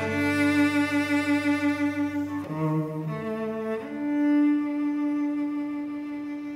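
Cello bowing long sustained notes in contemporary chamber music, with a higher held line above it. The notes change about two and a half seconds in, and a single long higher note rings from about four seconds in.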